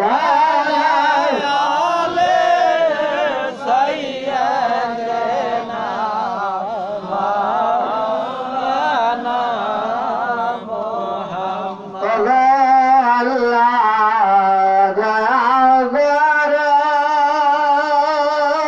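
A man singing a Bengali devotional chant (ghazal and Milad recitation) with long, wavering held notes. It grows louder about two-thirds of the way through.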